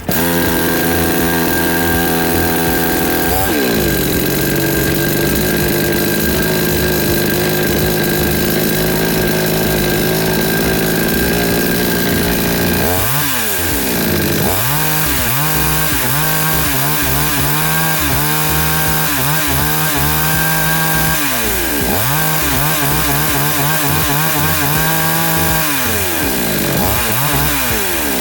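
Huyosen 54.6 cc two-stroke gas chainsaw running. It starts at a fast speed and drops to a steady idle after a few seconds. About halfway through, the throttle is opened and released over and over, so the engine revs up and falls back in repeated waves before settling to idle near the end.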